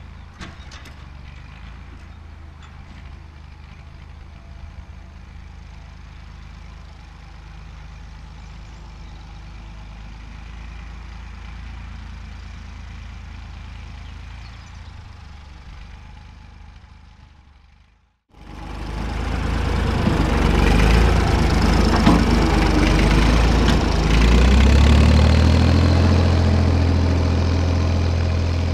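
Fordson Dexta tractor's three-cylinder engine running steadily as it pulls a field roller, heard from afar at first. About two-thirds of the way through, after a brief drop-out, the engine is heard up close and much louder.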